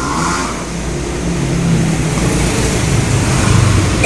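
Mabe window-type inverter air conditioner running steadily: a low compressor hum under the rush of the fan and airflow. The unit now keeps running instead of cutting out after about three minutes, its control board repaired with new capacitors.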